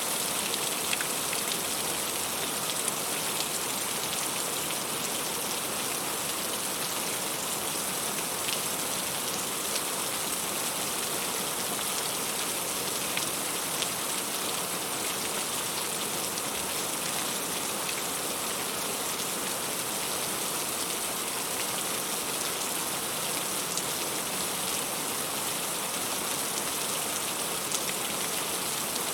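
Heavy rain falling steadily: a dense, even hiss with individual drops ticking through it.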